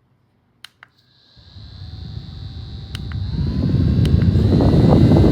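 Button clicks on a mini handheld USB fan, then its small motor starts with a steady high whine. The fan's airflow blows on the microphone as a rumble that grows steadily louder.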